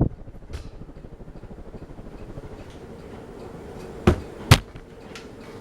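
Fasco Charleston ceiling fan running with a faint steady hum and a slight even pulse. Two sharp knocks come about four seconds in, half a second apart.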